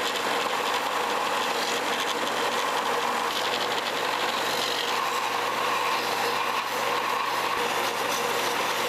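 Benchtop belt sander running steadily, with a clear Lexan (polycarbonate) lure body pressed against the moving abrasive belt, the plastic rasping on the belt as its edges are rounded off.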